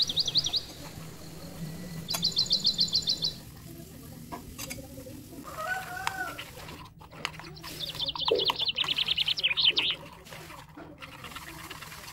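A small songbird trilling: three runs of rapid, evenly repeated high chirps, about ten notes a second, the loudest sound. Fainter clinks and scrapes of a metal spoon against a glass bowl as batter is stirred.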